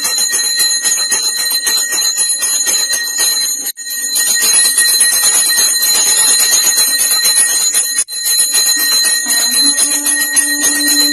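Temple bells ringing rapidly and without pause during a Shiva puja, the ringing cutting out for an instant twice; a steady low note joins in near the end.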